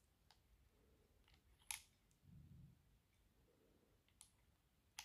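A few faint, sharp metallic clicks as brass .357 Magnum cartridges are slid into the chambers of a Taurus 605 revolver's open five-shot cylinder, the clearest about a second and a half in. Otherwise near silence.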